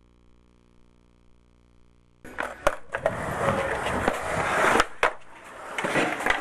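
Skateboard wheels rolling on a smooth, hard store floor, starting suddenly about two seconds in, with several sharp clacks along the way. Before that there is only a faint steady hum.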